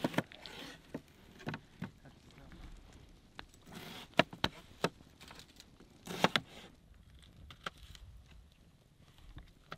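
Kitchen knife cutting vegetables on a plastic cutting board: irregular knocks of the blade against the board, the sharpest ones about four seconds in and again about six seconds in.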